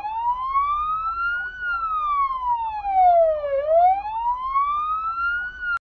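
Police siren wailing, its pitch rising and falling slowly, about four seconds per cycle; it stops abruptly near the end.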